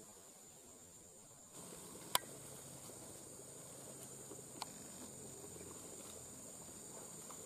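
Forest insects keep up a steady, high-pitched drone. A sharp click stands out about two seconds in, with a fainter one a couple of seconds later.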